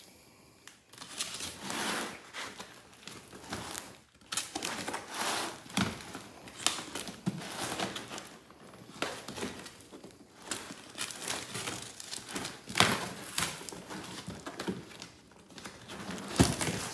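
A cardboard shipping box being opened by hand: packing tape torn and cardboard flaps and plastic wrapping rustling and crinkling in irregular scrapes throughout.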